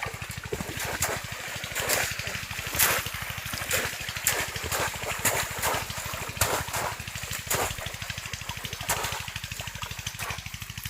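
Water splashing and sloshing in irregular strokes, about one every second, over a steady low motor chug that runs throughout.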